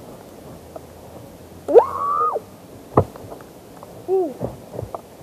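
A child's wordless vocal hoots: a rising, held 'ooo' about two seconds in and a shorter rise-and-fall hoot about four seconds in. There is a sharp knock about three seconds in.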